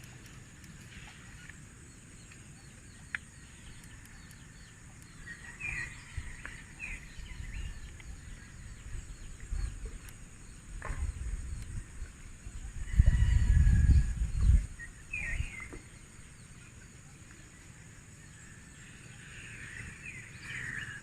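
Outdoor ambience: small birds chirping on and off over a steady high-pitched hiss. A low rumble comes through about two-thirds of the way in and lasts a second or two, the loudest thing here. A few faint clicks are scattered through.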